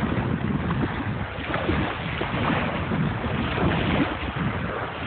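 Wind buffeting the microphone outdoors: an uneven low rumble with a steady hiss above it.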